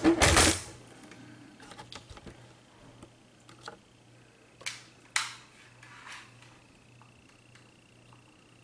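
The instrument being shifted and set down with a clatter, then a few scattered sharp clicks and taps over a faint steady hum, with a thin high whine coming in past the middle.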